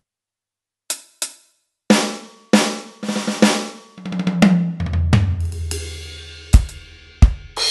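Acoustic drum-kit samples from a Roland SPD-SX PRO sampling pad, played with drumsticks. After a moment of silence come two light taps, then a run of drum hits and a quick roll. Two tom hits follow, the second lower, then a crash cymbal rings on, with two bass-drum hits near the end.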